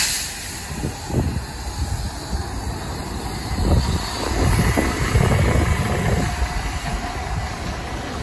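A bus driving by, its engine rumble growing louder toward the middle and easing off, with wind noise on the microphone.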